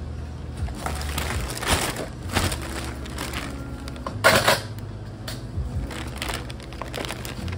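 Clear plastic bag rustling and crinkling as it is handled around a takeout box, in irregular bursts, the loudest crinkle about four and a half seconds in.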